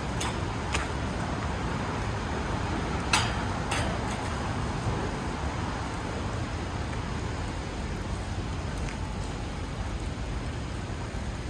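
Steady low outdoor rumble of urban background noise, with a few sharp clicks, the loudest about three seconds in.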